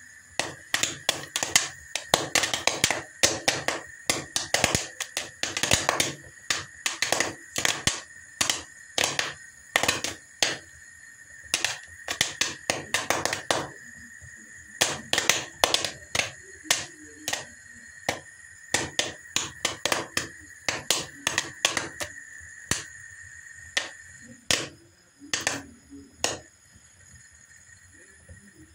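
Popcorn kernels popping in a frying pan: irregular sharp pops, coming thick and fast at first and thinning out toward the end as the batch finishes.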